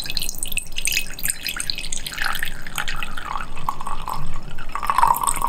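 Red wine poured from a bottle into a stemless glass: steady splashing with gurgling from the bottle.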